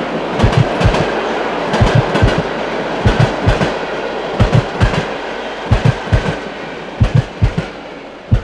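Passenger train carriage heard from inside: a steady rumbling rush with the clickety-clack of the wheels knocking over rail joints in quick groups of two or three. The rush fades near the end while the low knocks go on.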